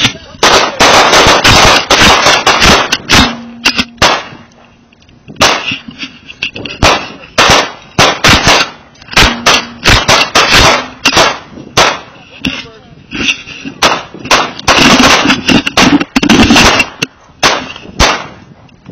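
Several handguns firing together on a range: rapid, overlapping strings of shots in dense volleys separated by short pauses, with scattered single shots between them.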